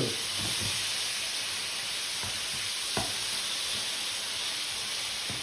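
Thin floured slices of meat sizzling in a hot frying pan as they are seared, with a spatula stirring them and tapping against the pan now and then, most clearly once about three seconds in.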